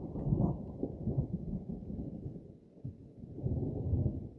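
Rolling thunder: a deep rumble dies down, swells again a little after three seconds in, then fades near the end.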